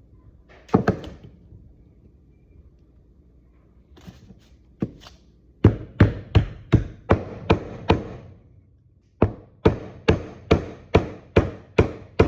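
Hammer tapping a new king pin into place in the spindle of a 1954 Chevrolet Bel Air's front end. Sharp strikes come in two runs of about two and a half blows a second, with a pause between them.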